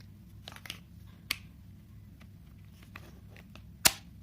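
Plastic accessory being fitted onto a Silvercrest SDM 1500 D3 steam cleaner: a few light plastic clicks, then one sharp, loud snap near the end as the part clicks into place.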